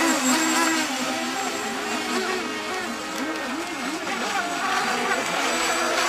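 Several small electric radio-controlled model racing boats running together, their motors whining, the pitches rising and falling as the boats race and turn.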